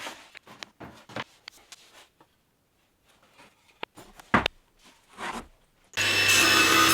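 Light, scattered knocks and scrapes from wood being handled in a workshop. About six seconds in, a power woodworking machine comes in suddenly and runs loud and steady, with a low hum.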